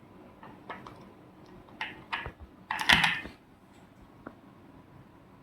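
Plastic toy vehicles being handled: scattered light clicks and knocks, with a louder clatter lasting about half a second around three seconds in.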